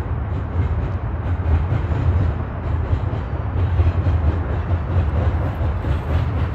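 Double-stack intermodal well cars loaded with shipping containers rolling past on steel rails: a steady, loud low rumble of wheels on track with faint repeated clicking.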